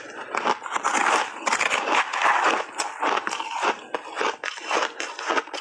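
Crunchy pink berry shaved ice coated in milk powder being bitten and chewed: a dense run of rapid, irregular crunches.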